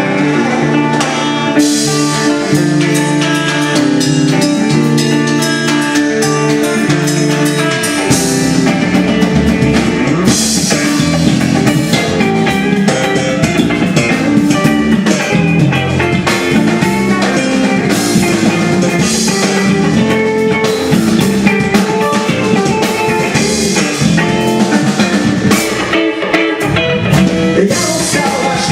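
Instrumental section of a rock song, without vocals: sustained guitar chords at first, with the drum kit and full band coming in about eight seconds in and playing on to the end.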